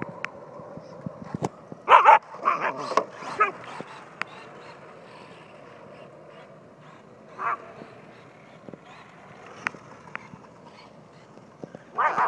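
German Shepherd puppy barking: a quick run of short barks about two seconds in, a single bark around seven and a half seconds, and another starting near the end.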